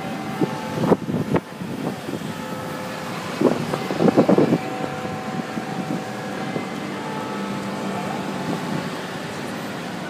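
City street sound: traffic with short bursts of passers-by's voices, under a few faint steady ringing tones.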